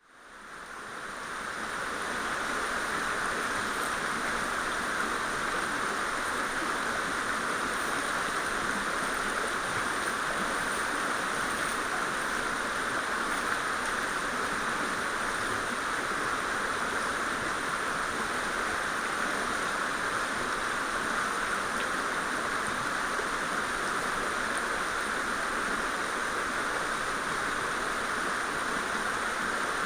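Mountain stream rushing steadily over rocks, a dense even wash of water noise that fades in over the first two seconds.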